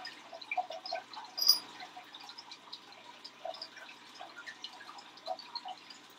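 Faint, scattered small clicks and sticky taps as a makeup brush is dipped in and dabbed with liquid latex, with one brief high squeak about a second and a half in.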